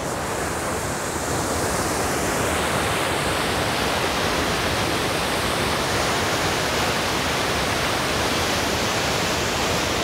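Waterfall rapids: white water rushing and churning over rock ledges, a steady hiss that grows fuller in the first two or three seconds and then holds.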